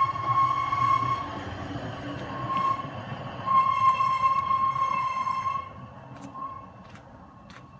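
A train on the railroad tracks: a low rumble under a high-pitched steady tone that sounds in long stretches, breaking off a few times. It fades after about six seconds, leaving a few sharp clicks near the end.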